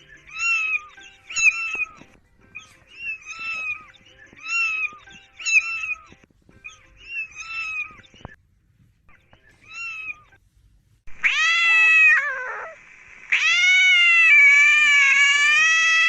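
Domestic cat meowing: about ten short, high meows in a row, about one a second. After a brief pause come two loud, long, drawn-out yowls, the second lasting about three seconds.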